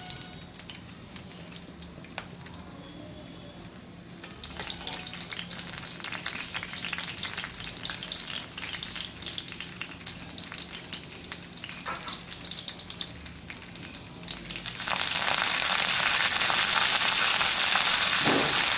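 Tempering of garlic, mustard seeds, urad dal, cumin and curry leaves crackling and sizzling in hot oil in a kadai. It starts faintly, grows into a busy crackle about four seconds in, and jumps to a much louder steady sizzle about fifteen seconds in.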